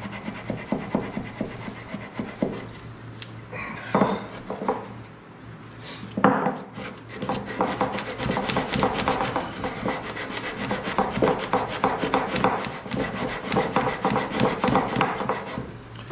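Sandpaper on a hand sanding block rubbed back and forth over plywood: scratchy hand-sanding strokes, sparse at first, then quicker and steadier from about six seconds in.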